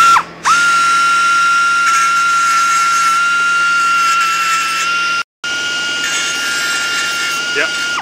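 Finger belt sander with a 120-grit belt running at a steady high whine against a TIG weld on a thin wrought iron leaf, grinding the weld flush. It gives a short burst, then after half a second runs steadily, with a brief break a little past five seconds in.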